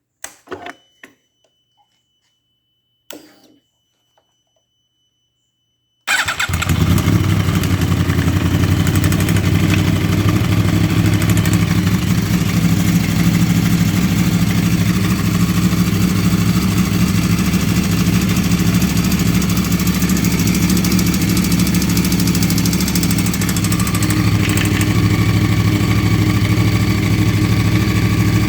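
A 2009 Yamaha R1's crossplane inline-four engine is started about six seconds in and then idles steadily, after a few clicks and a thin steady high whine. The owner questions whether a knock in its idle is rod knock.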